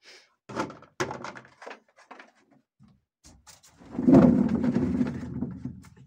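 Seed potatoes poured from a bucket into a storage box built from an old refrigerator cabinet, a rumbling tumble lasting under two seconds about four seconds in. A few short knocks of the bucket and potatoes come in the first two seconds.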